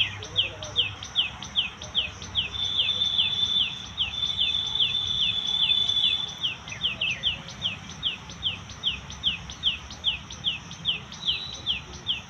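A bird calling a steady, rapid series of short descending chirps, about two or three a second. A steady high-pitched tone joins for a few seconds after the start and stops about halfway through.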